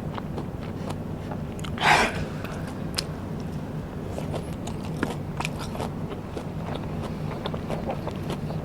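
Close-miked eating of Vietnamese rice paper (bánh tráng) snacks. There is one loud crunchy bite about two seconds in, then steady crackly chewing.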